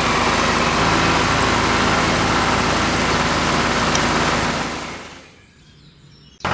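Tractor engine idling steadily, then fading away about five seconds in.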